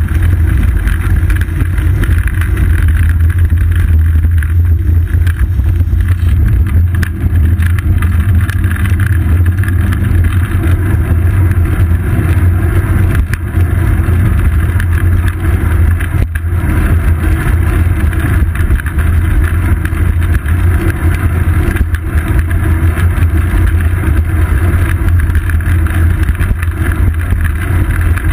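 Steady wind rumble and road vibration picked up by a seat-post-mounted action camera on a moving bicycle, with a few faint knocks from bumps in the road surface.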